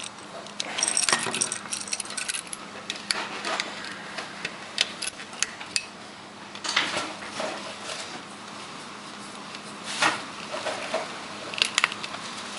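Scattered metallic clicks and clinks of a 240-volt plug being wired up, as wire ends are hooked around its terminal screws and the plug parts are handled.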